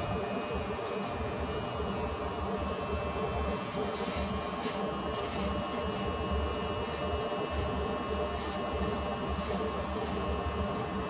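Corded electric hair clippers running with a steady buzz while being drawn through hair on a head.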